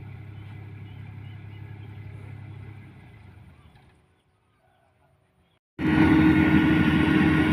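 Combine harvester engine running with a steady low hum that fades away to near silence about three to four seconds in. Nearly six seconds in, a much louder engine and machinery noise cuts in abruptly.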